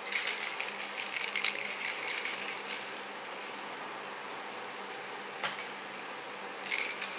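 Rapid, irregular rattling in two bursts, one for the first few seconds and another near the end: an aerosol spray paint can being shaken, its mixing ball clattering inside.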